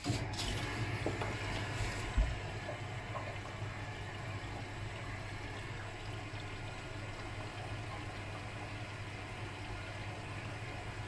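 Miele W Classic front-loading washing machine early in its wash cycle: water flowing in and sloshing as the drum turns the load, over a steady low hum. A single knock about two seconds in.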